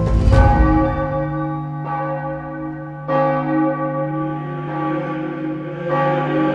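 Church bell tolling, struck about every second and a half, each strike ringing on into the next. A deep rumble of music dies away in the first half second.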